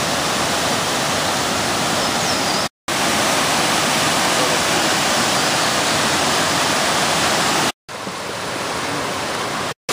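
Martin Creek, running high after heavy rain, roaring with water: a loud, steady rush of whitewater. It cuts out briefly three times, and the last couple of seconds are a little quieter.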